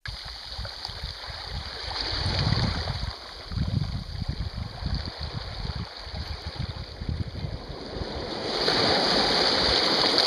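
Small waves lapping and splashing over stones at the water's edge, with wind buffeting the microphone. The splashing grows louder and fuller about eight and a half seconds in.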